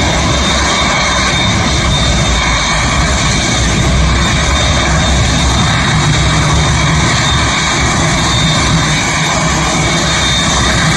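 Jet engines of a Boeing 787 airliner running loud and steady, a thin high whine held over the low rumble.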